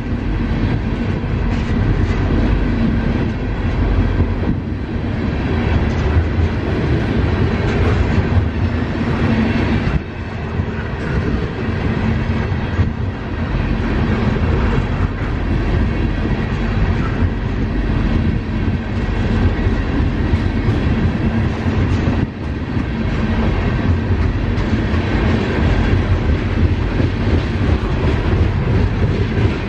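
Freight train of loaded tank cars rolling steadily past: a continuous rumble of steel wheels on the rails, with repeated clacks as the wheels cross rail joints.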